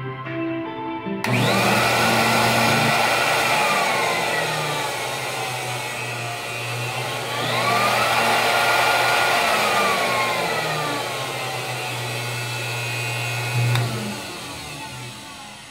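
3M W-6080 ambient-air blower switched on about a second in: a sudden rush of air with a motor whine whose pitch falls, then rises and falls again as its knob is turned. It is switched off with a click near the end and the rush dies away. Guitar music plays underneath.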